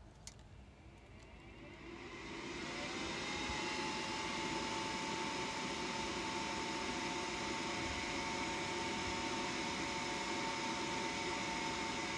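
A click, then a small motor spinning up over about three seconds, its whine rising in pitch, then running steadily with a whirring hiss.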